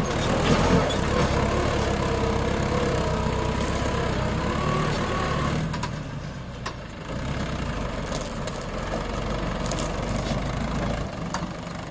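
Mahindra 575 DI tractor's four-cylinder diesel engine running hard as it pulls a fully loaded soil trolley. The engine is loudest for the first half and drops to a steadier, quieter running after about six seconds.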